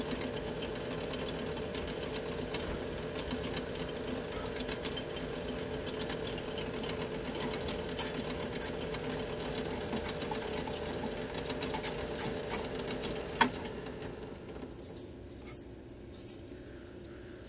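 Metal lathe running with a steady hum while a boring bar cuts the bolt nose recess in a Remington 700 receiver's steel tenon, with a string of sharp ticks from about eight seconds in. A loud click comes a little past halfway, and the motor hum then dies away as the lathe stops.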